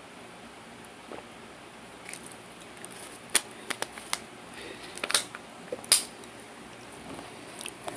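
Crunchy chunks of starch being bitten and chewed: a string of sharp crunches and clicks, most of them between about three and six seconds in.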